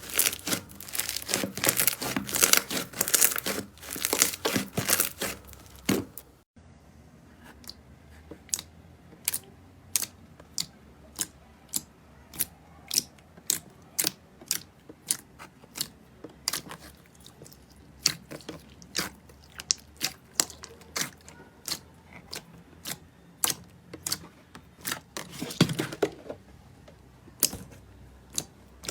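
Slime being pressed and worked close to the microphone. First comes a dense run of crunchy crackling. After a sudden cut about six seconds in, it gives way to separate sharp sticky pops, about two a second, with a louder burst of crackling near the end.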